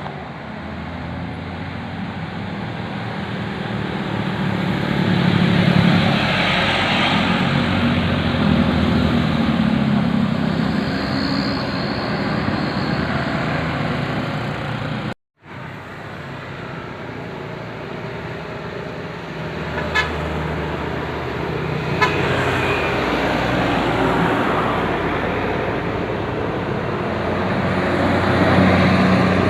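Bus traffic with a large bus's engine running and its air horn tooting in low stacked tones. The sound drops out briefly about halfway, and two sharp clicks come a couple of seconds apart in the second half.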